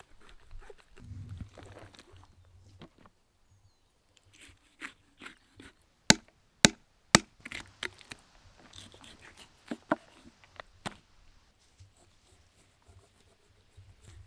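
Food-preparation knocks and scrapes, with three hard strikes about half a second apart, like a knife chopping down onto a cutting board, followed by a few lighter knocks.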